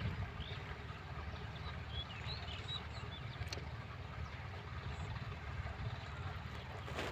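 Outdoor ambience: a steady low rumble, with a few faint bird chirps about two to three seconds in.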